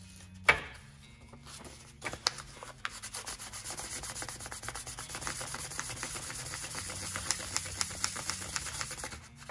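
Folded 1500-grit wet sandpaper rubbed back and forth on the aluminium housing of a hydrostatic transmission pump, in quick, even strokes from about two seconds in. A single sharp knock comes about half a second in.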